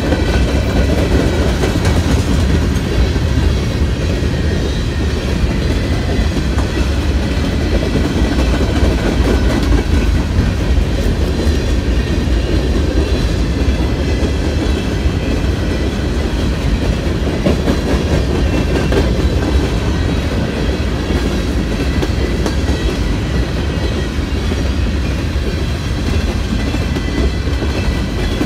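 Freight train of open-top hopper cars rolling past close by: steel wheels running on the rails in a deep, steady rolling noise, with the clickety-clack of wheels over the rail joints.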